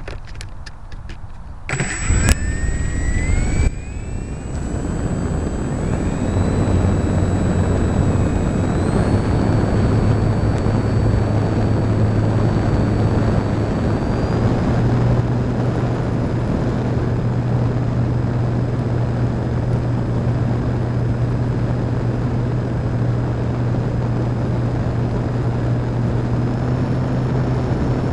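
Parkzone Radian electric glider's motor and propeller spooling up with a rising whine about two seconds in, then running steadily under climb power, stepping up in pitch twice. Heard from a camera on the plane itself, with heavy rushing air noise.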